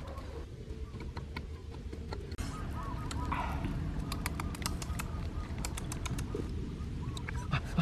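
Irregular sharp clicks and ticks, sometimes several in quick succession, over a low steady rumble, with faint bird chirps in the background.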